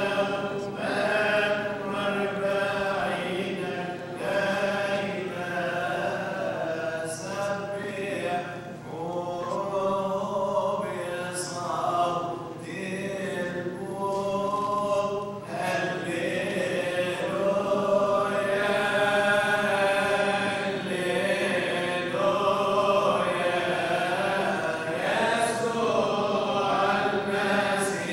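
Coptic liturgical chant sung by several voices, a slow melismatic hymn that carries on without a break.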